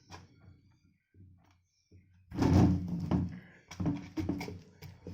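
Knocks, clunks and rubbing from a plastic electric kettle being handled: a click at the start, then from about two seconds in a loud run of knocks and scraping.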